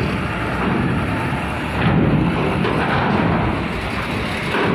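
Heavily loaded Hino cargo truck's diesel engine working under load as it drives up the steel ramp into a ferry's vehicle deck: a steady low rumble that swells about two seconds in.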